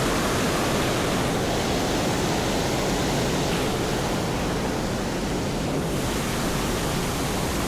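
Steady, loud rush of a waterfall, an even wash of falling water with no breaks.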